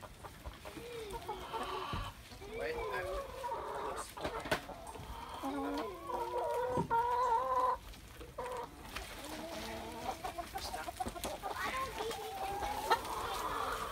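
Domestic hens clucking and calling, short bending calls through the whole stretch, with one longer held call around the middle.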